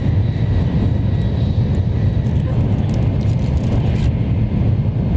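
Steady low rumble of a moving high-speed train heard from inside the passenger cabin, with a faint thin whine above it.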